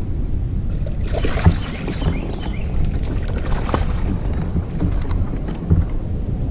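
A hooked bass splashing and thrashing at the surface beside a kayak, mostly from about one to four seconds in, with two sharp knocks. Steady wind rumble on the microphone runs underneath.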